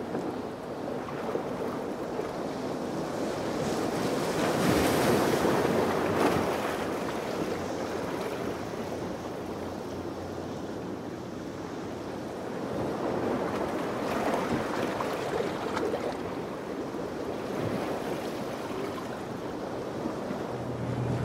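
Surf breaking and washing in rough inlet water, with wind buffeting the microphone; the noise swells twice, about four seconds in and again about thirteen seconds in.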